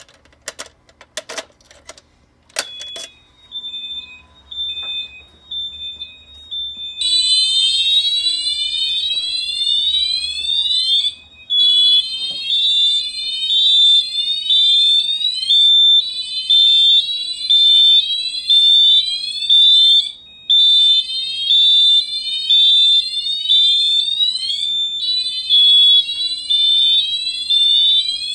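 A few clicks, then a high electronic beeping starts about three seconds in. From about seven seconds in, loud rising sweep tones join and repeat in cycles broken by short gaps every four to five seconds. These are fire alarm notification appliances on a Simplex 4010ES system sounding in alarm during a test activation.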